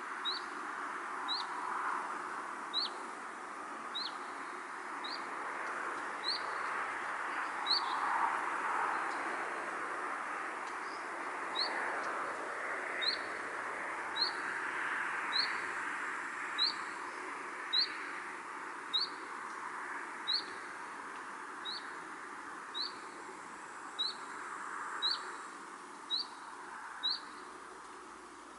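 A single bird repeating a short, high, rising chirp about once every second or so, more than twenty times with one longer pause partway through, over a steady rushing background noise.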